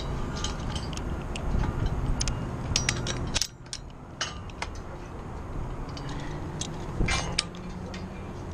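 Metal climbing hardware (carabiners, a rope grab and a rope descender) clicking and clinking as it is handled, many sharp clicks in no steady rhythm. Under it is a low rumble that drops away about three and a half seconds in.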